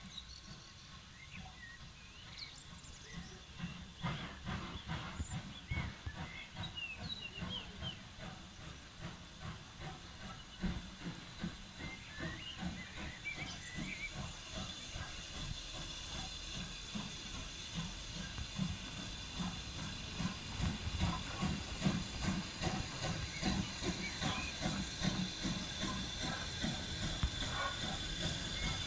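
Steam locomotive approaching at work: a run of exhaust chuffs with steam hiss, growing steadily louder as it nears. Birds chirp faintly in the first half.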